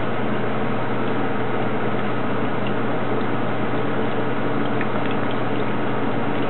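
Chopped garlic sizzling steadily in olive oil in a sauté pan as it cooks toward light golden brown, over a steady low hum.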